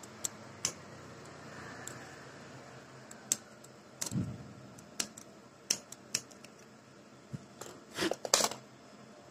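Scissors snipping and handling stranded copper wire for a starter-motor brush lead: a dozen or so irregular sharp clicks and snips, with a quick cluster of louder ones near the end.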